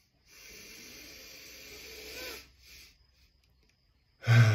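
A man's long, deep in-breath, a short second intake, then a held pause; near the end a loud voiced sigh breaks out as he lets the breath go.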